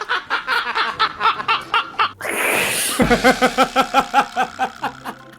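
A person laughing in rapid, repeated bursts, broken about two seconds in by a breathy rush of air before the laughter resumes and trails off near the end.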